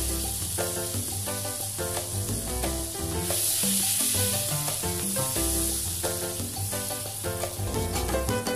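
Butter melting and sizzling in a nonstick frying pan as metal tongs push the cubes around; the sizzle grows louder about three seconds in. Background music with a steady beat plays underneath.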